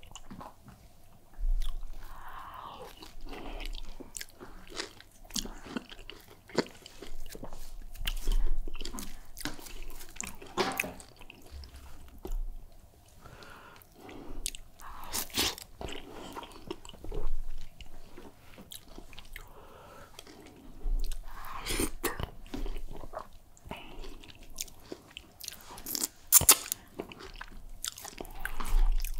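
Close-miked chewing and wet mouth sounds of someone eating soft food, egusi soup with fufu: irregular smacks, squelches and sharp clicks, the loudest a few seconds before the end.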